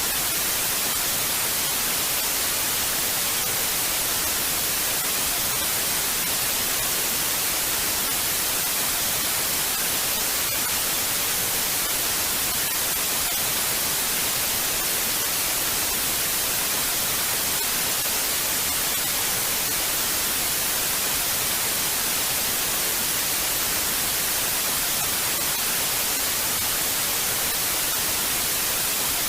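Television static: a steady, even hiss of white noise with no changes, heaviest in the high end.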